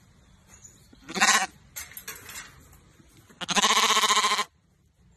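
A sheep bleating: a short loud bleat about a second in, a fainter one just after, then a longer, wavering bleat about three and a half seconds in.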